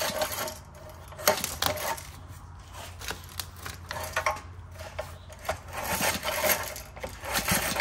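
Recoil starter of a 1951 Briggs & Stratton 6B-SF single-cylinder engine being pulled by hand, turning the engine over with irregular metallic clicks and rattles. The recoil works poorly and, in the owner's view, needs lube.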